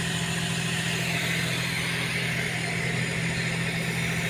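A steady low mechanical drone with a hiss above it, engine-like and unchanging.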